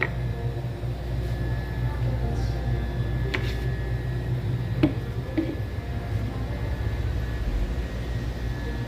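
Steady low mechanical hum of an indoor room, with a few sharp clicks, two of them about three and a half and five seconds in.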